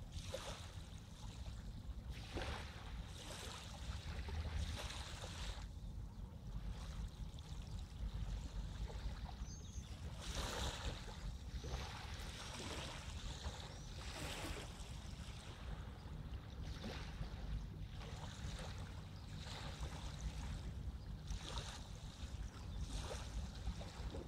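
River water lapping and splashing in irregular surges every second or two, over a steady low rumble.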